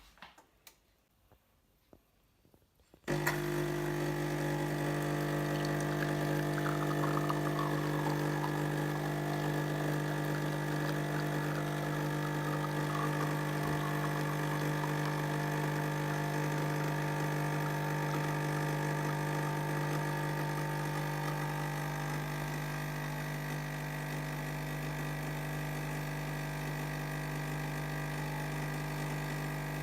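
Coffee machine running: a few faint clicks, then a steady mechanical hum that starts abruptly about three seconds in and keeps on, easing off slightly later on.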